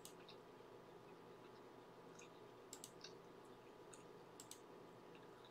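Near silence: a faint steady room hum with a handful of soft, scattered clicks at a computer, the sound of someone hunting for something on screen.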